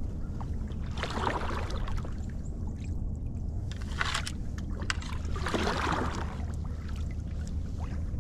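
Kayak paddle strokes in shallow creek water: three splashing swishes about two seconds apart, over a steady low rumble.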